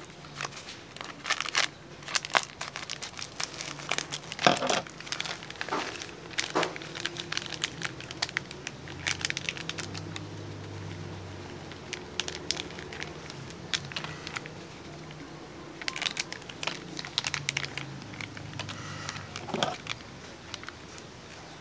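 Small chili powder sachets crinkling and crackling in the hands as they are snipped open with scissors and squeezed empty, in many short irregular crackles.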